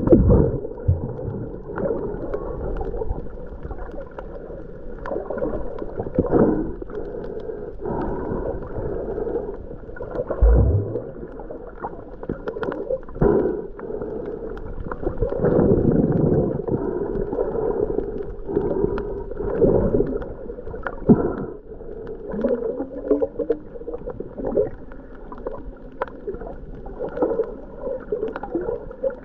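Muffled water gurgling and sloshing around a snorkeler, with scattered small clicks and knocks, dull as if heard underwater.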